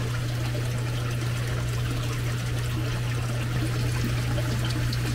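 Water bubbling and trickling in an aerated live-crab tank, with a steady low hum beneath it.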